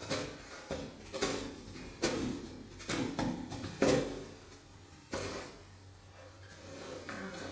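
Toilet paper roll turning and rattling on its wall-mounted holder as a cat paws and bites at it, with the paper rustling as it is pulled off in uneven tugs. The loudest tug comes about four seconds in, and it is quieter near the end.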